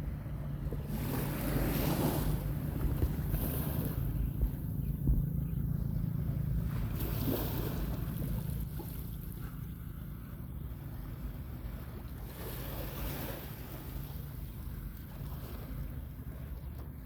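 Small sea waves washing in, with a hissing swell about every five seconds, over a steady low rumble.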